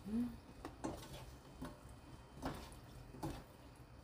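Wooden spatula stirring and tossing sticky, sauce-coated dried filefish strips in a nonstick wok, giving a few irregular soft taps and scrapes against the pan.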